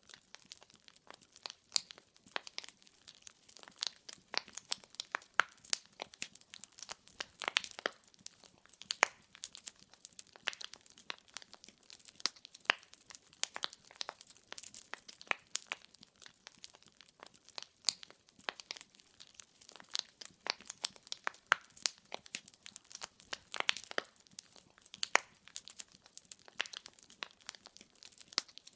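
Firewood burning in a fireplace, crackling and popping in a dense, irregular run of sharp snaps over a faint hiss.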